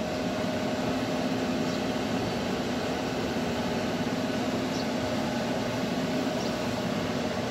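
Steady mechanical hum of a running machine: a constant low drone with a fainter, higher tone above it, unchanging throughout.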